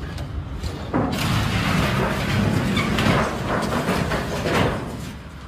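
Semi-trailer's box crashing into and crumpling under a building's overhang as the truck keeps moving: a loud, dense run of crunching and knocking that starts about a second in, lasts about four seconds and dies down near the end.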